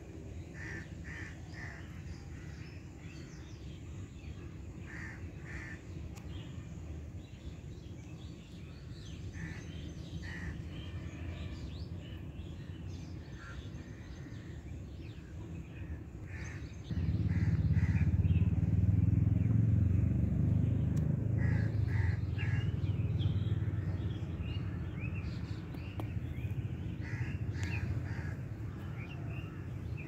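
Crows cawing in short runs of two or three calls, again and again, over a steady low outdoor rumble that gets suddenly louder about halfway through.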